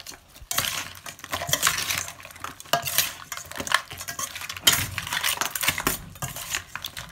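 A metal spoon scraping and clinking against a stainless steel mixing bowl as a raw blue crab salad is tossed. The scrapes and clinks come continually and unevenly, with the wet crab pieces and herbs turning over.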